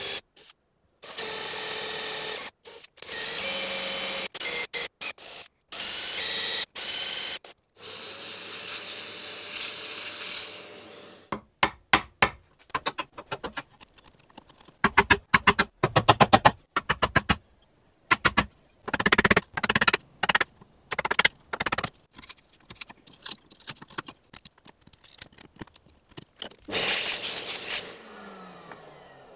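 A handheld drill with a Forstner bit boring into plywood in several short runs, each starting and stopping, then a chisel hogging out the hinge pocket with many quick sharp taps and scrapes on the wood. A short rushing burst comes near the end.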